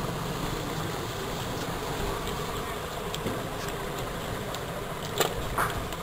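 Steady low buzzing hum in the room, with a short sharp click about five seconds in.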